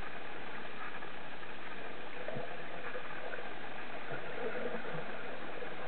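Steady hiss and crackle of water heard underwater through a waterproof camera case, with a faint hum coming and going in the second half.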